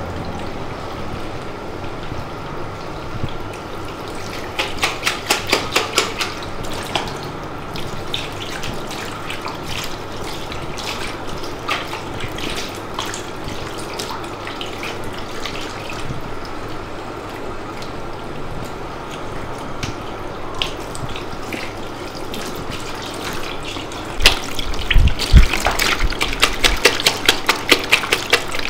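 Water running steadily from a tap into a basin. Clusters of splashing come about five seconds in, and a louder stretch of splashing with a few low thumps starts about 24 seconds in.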